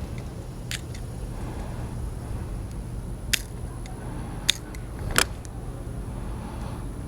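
Short, sharp clicks and scrapes of a blade chipping hardened epoxy off a fishing rod's tip-top guide: four separate snaps, the loudest about five seconds in.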